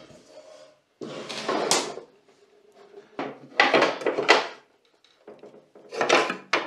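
A solar panel and a plastic mounting bracket scraping and knocking as they are shifted on a wooden table, in three bursts of up to about a second each.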